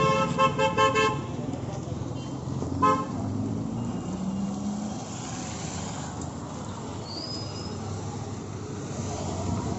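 Motorcycle electric horn beeped four times in quick succession, then once more about two seconds later, over the steady low running of the Royal Enfield Bullet's single-cylinder cast-iron engine.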